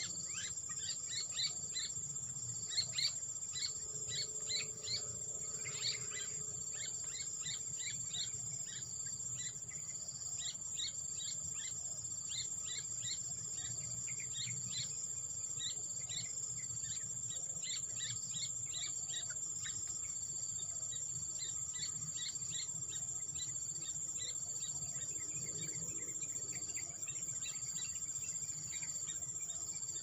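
A steady, high-pitched drone of insects such as crickets, with many short, quick bird chirps scattered over it. The chirps are thickest in the first few seconds and again through the middle.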